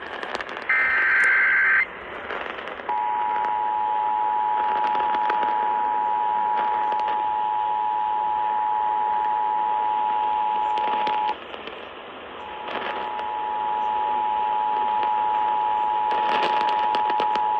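Emergency Alert System broadcast: a short warbling digital data burst of the SAME header, then, about three seconds in, the EAS attention signal, two steady tones sounding together (853 and 960 Hz). The attention tone cuts out for about a second near the middle and then resumes, all under constant radio static with crackles.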